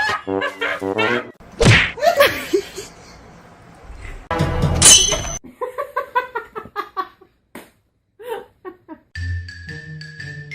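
Music in short cut-together pieces, broken by a few sudden thuds and knocks, with brief gaps near silence.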